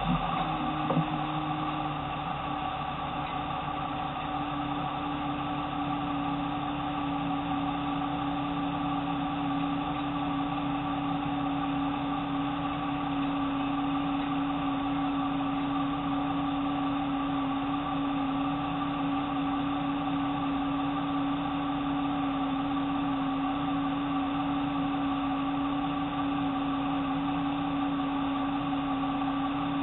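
A Jeep engine idling steadily, heard close up from a bumper-mounted camera, with a steady low whine.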